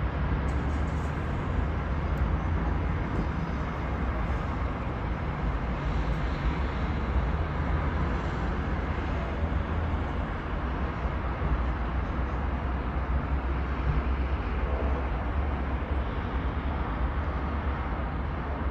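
Steady low rumble and hiss of dense, slow-moving city traffic on a multi-lane road interchange during a traffic jam.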